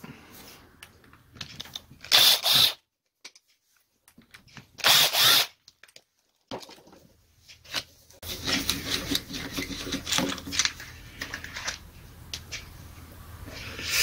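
Cordless drill-driver spinning out the screws of a demolition hammer's motor cover in two short bursts, about two and five seconds in. From about eight seconds, a stretch of clattering and rustling as the loosened cover and parts are handled.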